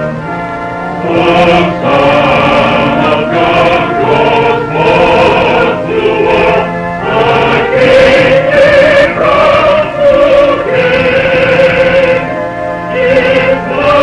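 A congregation singing a hymn together, holding each note and moving phrase by phrase with short breaks between lines.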